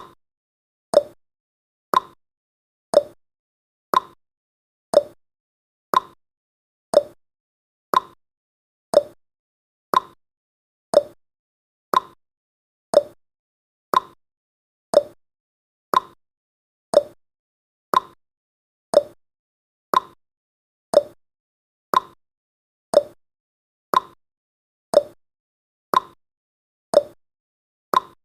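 Clock-ticking sound effect of a countdown timer: one short tick every second, steady throughout, alternating between a slightly higher tick and a lower tock.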